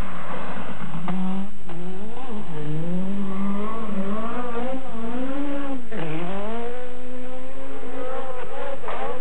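Peugeot 405 Turbo 16 rally car's turbocharged four-cylinder engine at full throttle, its pitch climbing through each gear and dropping sharply at the shifts, most clearly about six seconds in, with a few sharp cracks among it.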